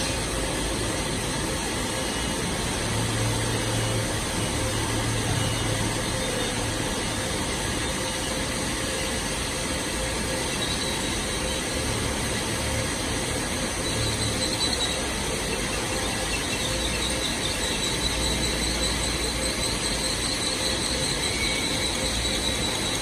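A CNC horizontal boring and milling machine running, a steady mechanical noise. A faint high-pitched squeal comes in about halfway through and grows near the end.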